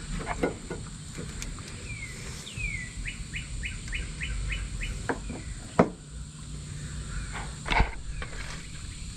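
A bird calling: two falling whistled notes about two seconds in, then a quick run of about seven short rising notes. Sharp clicks and knocks sound around it, the loudest about six and eight seconds in.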